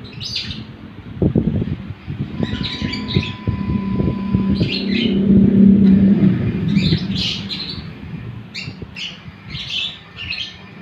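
Small birds chirping in short repeated bursts, coming more often toward the end, over a low rumble that swells to its loudest about halfway through and then fades.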